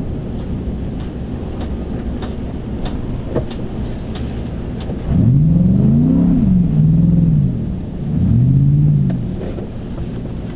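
Chevy Silverado pickup's engine and tyres rumbling while driving on snow, heard from inside the cab. About halfway through, the engine's pitch rises and falls twice and gets louder as it speeds up and eases off.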